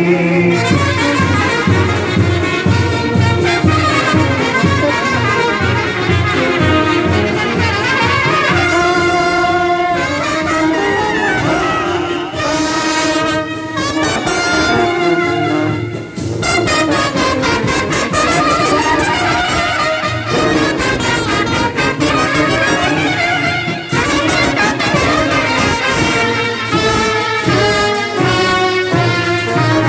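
Indian street brass band playing a Hindi film song on trumpets, trombones and a large brass horn, loud and continuous.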